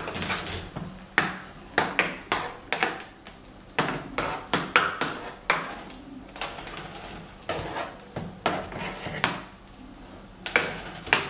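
Large metal spoon scraping and clinking against a dark metal baking tin as mashed potato is spread and pressed flat in it, in irregular clinks and short scrapes.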